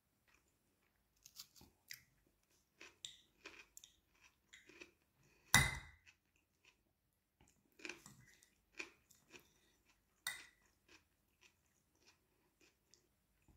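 Eating sounds: chewing, and a metal fork clicking and scraping on a plate as a meatball in tomato sauce is cut up. About five and a half seconds in, the fork strikes the plate with one sharp, much louder clack as sauce splashes.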